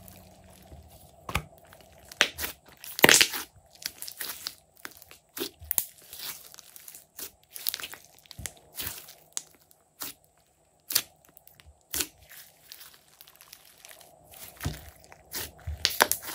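Glossy slime squeezed and kneaded by hand, giving irregular sharp pops and crackles as trapped air bursts, the loudest about three seconds in.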